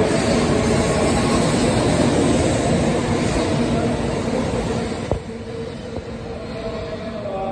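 An 8-car N700-series Shinkansen train pulling out of the station and passing close by, a steady noise of wheels, motors and air. About five seconds in, as the last car clears, the noise drops away with a single knock and the train fades as it draws off.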